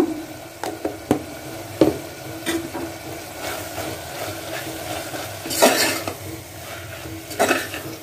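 A metal spoon and slotted spatula stirring mutton pieces and masala powder in an aluminium pressure cooker, sautéing them over a low sizzle. A few sharp clicks of metal on the pot come in the first few seconds, then two longer scraping strokes near the end.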